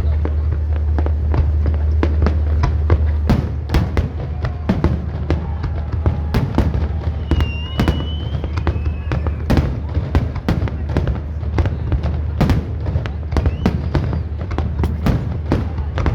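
Fireworks display going off in dense, irregular bangs and crackles, several reports a second, with a short high whistle about halfway.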